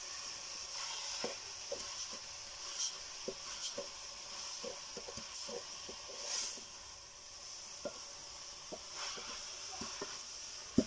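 Chopped kales sizzling steadily in a metal pot over a wood fire while a wooden spoon stirs them, scraping and clicking against the pot, with one sharp knock near the end.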